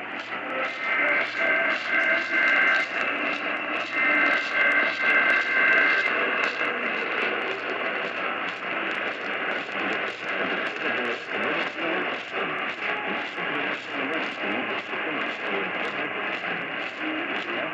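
Weak AM radio reception of an Emergency Alert System test. Two bursts of the warbling two-tone digital SAME header, each about two seconds long, come through in the first six seconds. After that only hiss, crackling static and interference remain.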